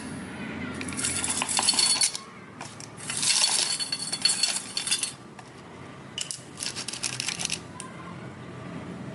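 Hard small objects clattering and clinking against glassware in three rattling bursts, the middle one the longest, with a bright ring under the clinks.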